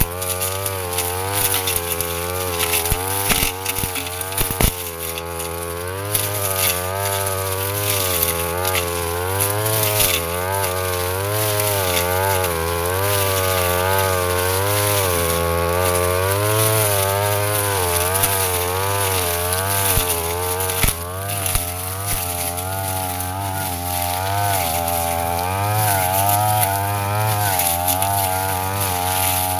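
Petrol brush cutter engine running hard. Its pitch wavers up and down every second or two as the blade cuts through grass and undergrowth, with a few brief sharp ticks.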